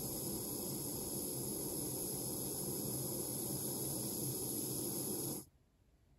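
Handheld gas torch running steadily while its blue flame heats small brass pieces on a soldering board. It cuts off suddenly about five seconds in as the flame is shut off.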